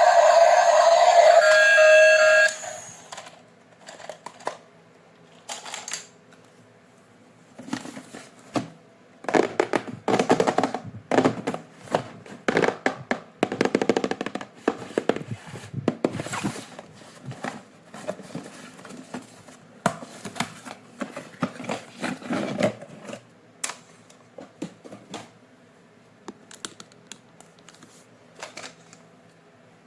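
Background music with singing cuts off about two seconds in. Then come irregular clicking, rustling and crackling from toys and their packaging being handled during an unboxing, busiest in the middle.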